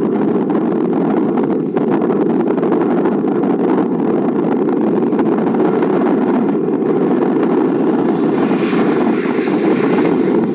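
Strong wind buffeting the microphone: a steady, heavy rumbling roar with no let-up, and a brief rise in hiss near the end.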